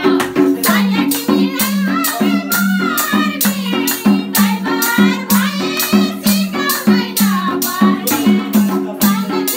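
Nepali lok dohori folk band playing an instrumental passage: a steady percussion beat over a repeating low bass figure, with a wavering melody line above.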